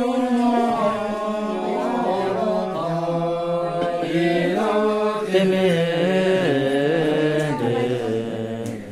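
Several voices chanting together over a steady low held note, the melody moving in slow steps above it.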